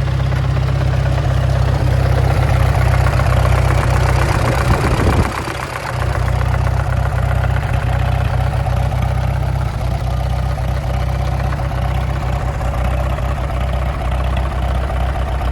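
An engine running steadily at idle, with a brief drop and a falling sweep about five seconds in before it settles back.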